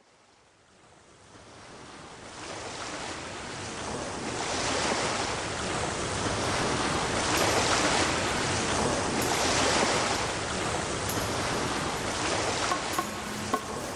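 Rushing noise like surf washing on a shore, fading up from silence and swelling and ebbing every second or two. A few soft musical tones come in near the end.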